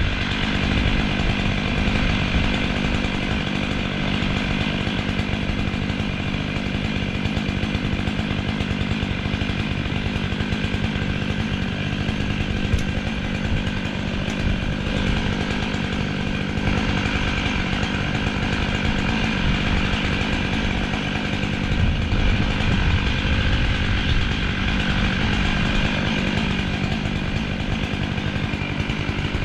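Chainsaw running steadily at a constant pitch, cutting into a large tree trunk.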